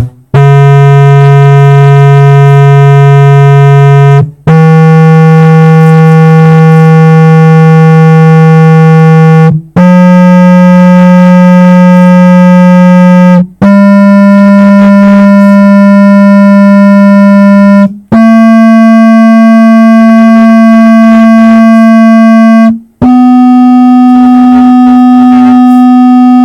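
Sony MHC-EC99i stereo system playing loud steady test tones, stepping up in pitch about every four seconds through seven tones from roughly 125 Hz to 250 Hz, with a short gap between each. Each tone is buzzy with strong overtones.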